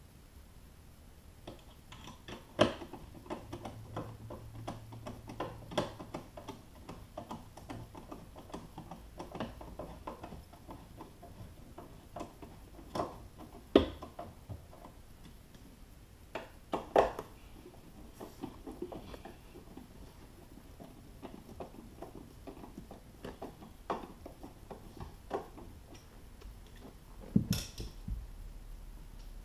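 Hand-tool work on a car's floor: light clicking and ticking of a screwdriver working at screws and small parts, broken by a few sharper metal knocks.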